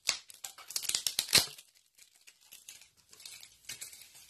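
Poster packaging crinkling and tearing as a rolled poster is worked free of its glued wrapping: a run of sharp crackles over the first second and a half, loudest about a second and a half in, then fainter rustles near the end.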